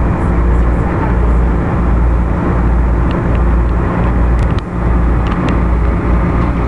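Washington Metro railcar running, heard from inside the car: a steady low rumble with a hum of motor tones and a few faint clicks.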